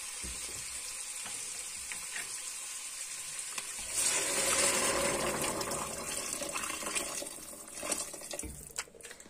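Steady sizzling from sautéed chicken, potatoes and chickpeas in a hot steel pot. About four seconds in, water is poured in from a jug, giving a louder splashing, hissing pour that dies away after a few seconds. A couple of knocks come near the end.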